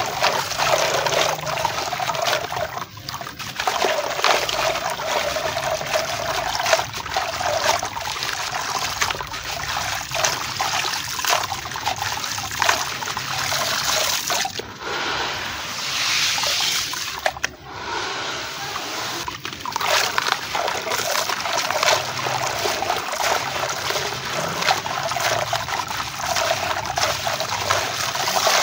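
Lumps of wet gravel and sand crumbled by hand into a basin of water: a continuous gritty trickling and splashing as the grit pours into the water, broken by a few brief pauses.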